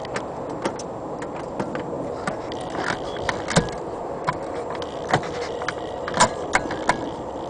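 Boat's starter clicking over and over at an irregular pace without cranking the OMC V6 sterndrive engine, which probably needs a fresh battery.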